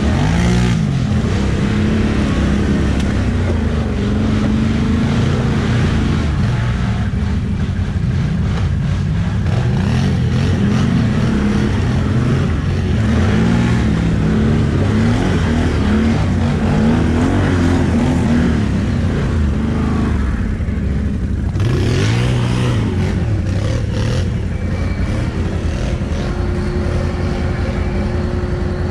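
ATV engine revving up and down under throttle while riding, its pitch rising and falling over and over, then holding a steady pitch near the end.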